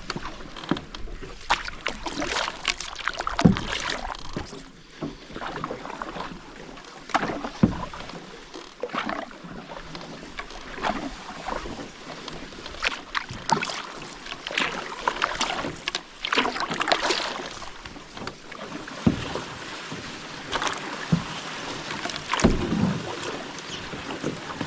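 Canoe paddling in shallow river water: irregular paddle strokes splashing and dripping, with a few sharp knocks from the paddle against the canoe.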